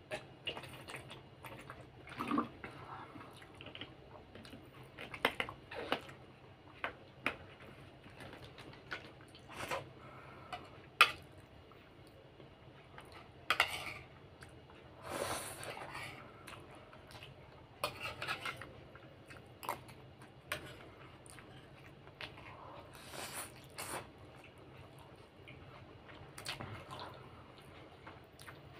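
Metal spoon clinking and scraping against a plastic plate, with scattered sharp clicks and mouth sounds of chewing a meal of rice and noodles.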